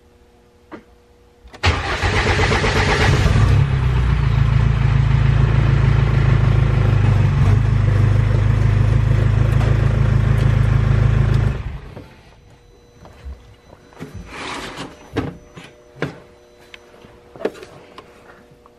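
Cummins R2.8 four-cylinder turbodiesel cranking and catching about two seconds in, running steadily for about eight seconds, then stopping abruptly. This is the engine's first start. A few light clicks and knocks follow.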